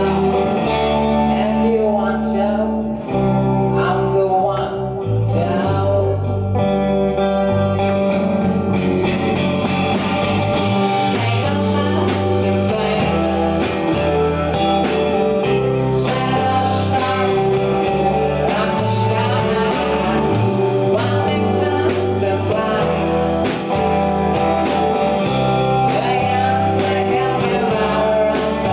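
Rock band playing live: electric guitars, electric bass and drum kit under a male lead vocal. About nine to ten seconds in, the drums open up with steady cymbal strokes and the full band comes in.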